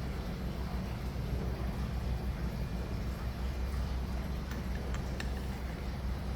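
Steady low hum of a workshop, with a few faint light clicks of small engine parts being handled, a little past the middle.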